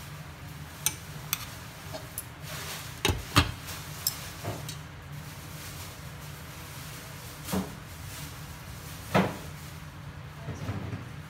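Chopsticks clicking against a stainless steel pot, then a glass lid knocked into place on the pot about three seconds in, the loudest sound. Two more single knocks follow later over a steady low hum.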